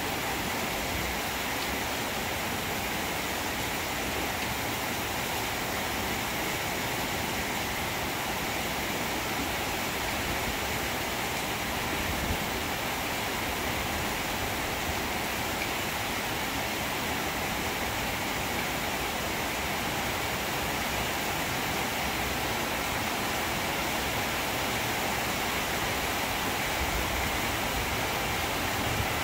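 Steady rain falling on trees and foliage, an even hiss with no breaks.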